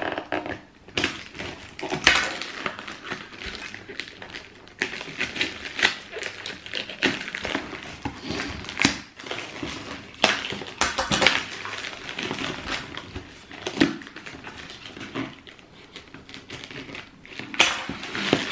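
A cardboard shoebox and its paper wrapping being opened and handled by hand: irregular rustling and crinkling with many short, sharp scrapes.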